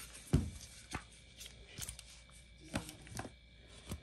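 Eyeshadow palettes being handled: a handful of light knocks and clicks as the cases are set down and picked up, the loudest about a third of a second in.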